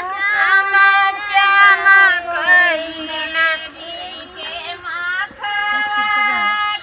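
Women's voices singing a kajri folk song, a work song for transplanting rice, with long held notes that slide up and down.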